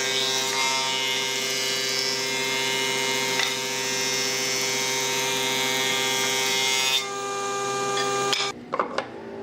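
A handheld power tool's electric motor running at a steady pitch. Its high whine drops away about seven seconds in, and the motor stops about a second later, followed by a few light knocks.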